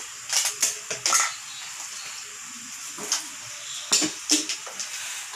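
Metal spoon clinking and scraping against a stainless steel cooking pot while stirring a soupy mung bean stew: a quick run of sharp clinks in the first second or so, then a few more about three to four seconds in.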